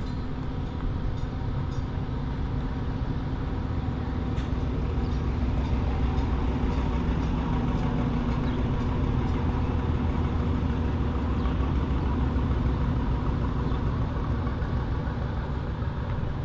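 Ferguson TE20 tractor's four-cylinder engine running steadily.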